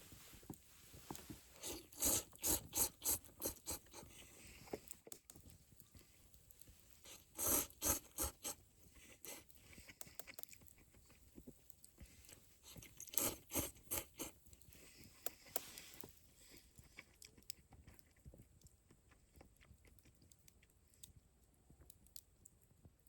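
Close-up chewing and crunching of food, in three bouts of a few seconds each with quieter gaps between.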